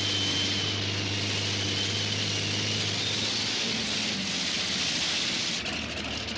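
Allison V12 aircraft engines of a multi-engine pulling tractor running steadily at idle: a deep, even hum with a thin high whine over a dense rush of noise, easing slightly near the end.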